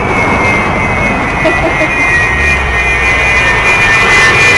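Avro Vulcan bomber's four Olympus turbojets running at high power as it climbs overhead: a loud, dense jet rumble with a steady high whine on top, growing louder near the end.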